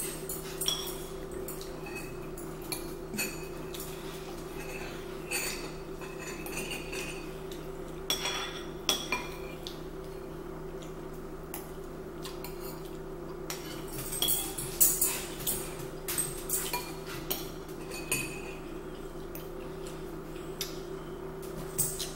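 Metal spoon and fork clinking and scraping against glazed ceramic bowls during a meal, in scattered taps that cluster about 8 seconds in and again from about 14 to 18 seconds. A steady low hum runs underneath.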